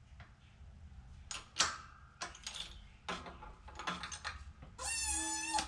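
Hydraulic shop press being pumped by its hand lever to press a seal into a steering bell crank: a run of irregular metal clicks and clanks from the jack's pump handle and ram, then a short high squeal near the end as the part moves under pressure.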